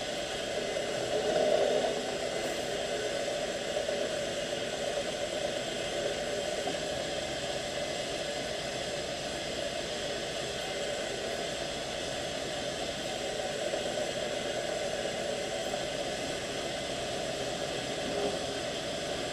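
Drilling machine running steadily, a constant whir with several fixed tones, while a long 1/8-inch twist drill pecks a deep hole into aluminum. It swells briefly louder about a second and a half in.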